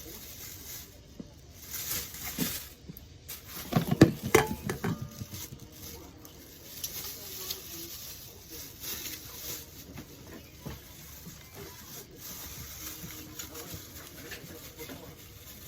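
Kitchen clatter while cooking: utensils and dishes knocking and clinking, with a quick run of loud ringing clinks about four seconds in.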